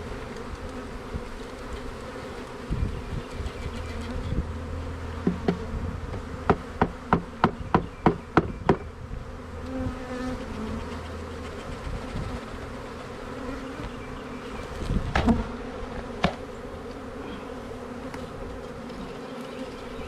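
A mass of Russian honey bees buzzing with a steady hum. Midway a quick run of about nine sharp knocks comes at about four a second, then a heavier thump and a single knock later on, as the bee package is knocked to shake the bees down.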